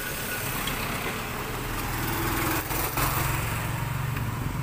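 Small motorcycle engine running close by, slowly getting louder, over general street traffic noise.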